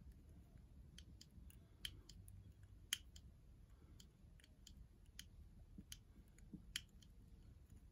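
Faint, irregular small clicks, two or three a second, of a thin wire pick and tensioner working the levers inside a Chubb Corvette lever padlock as the picker fishes for lever movement.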